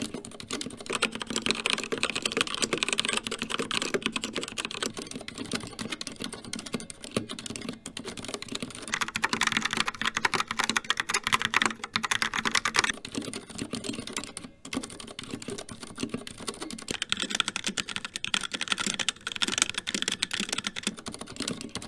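Continuous fast typing on mechanical keyboards, one after another: a CZC Dwarf with Kailh Red switches, then a Logitech Pop Keys with TTC Brown switches from about nine seconds in, then a HyperX Alloy Origins with HyperX Red switches from about seventeen seconds in. The key clicks change in pitch and weight at each switch-over.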